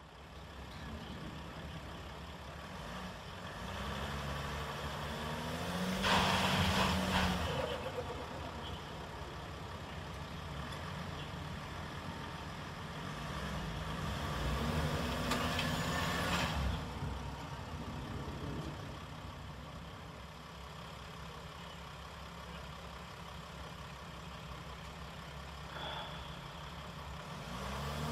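Delivery van engine running and revving in rising pulses, with two louder rushing surges about six and fifteen seconds in, as a van stuck with a wheel buried in soft ground tries to pull free.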